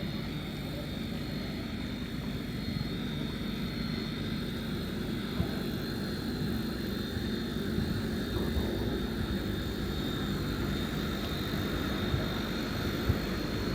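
Steady low engine drone, growing slightly louder, with a few faint clicks.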